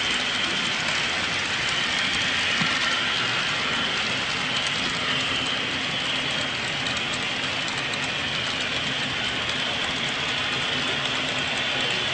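HO-scale model train running on the layout track: a steady mechanical running sound with fine clicking.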